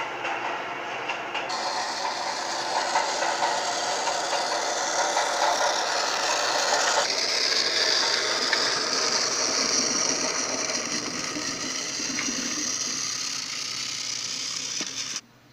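Battery-powered toy train's small motor and plastic gears running with a steady grinding whir, changing abruptly twice and cutting off suddenly near the end.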